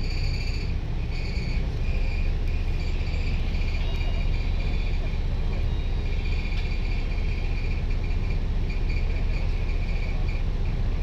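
Volvo B9TL double-decker bus's Euro 3 diesel engine and road noise heard from the upper deck while under way: a steady low rumble. A high, pulsing chirp comes and goes over it.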